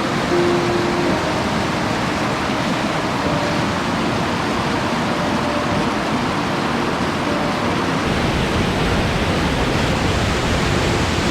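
Rushing water: a steady, loud, even roar of fast-flowing mountain water.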